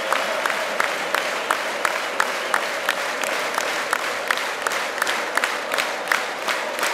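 Football crowd clapping in unison to a steady beat, about three claps a second, over a general roar of crowd noise.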